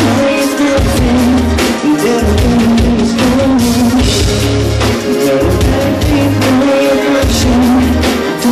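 Live pop-rock band playing: a sung lead vocal over electric guitars and a drum kit, with steady drum beats under the melody.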